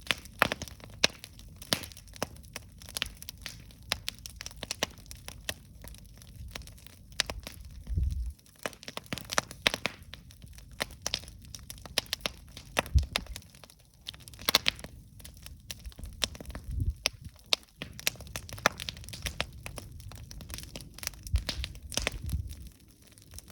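Wood campfire burning, with irregular sharp pops and crackles over a low rumble and an occasional louder low thud.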